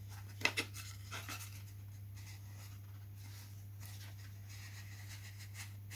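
Faint light taps and small scratching as fingers press thin balsa cap strips into place on the wing ribs, with a couple of sharper clicks about half a second in, over a steady low hum.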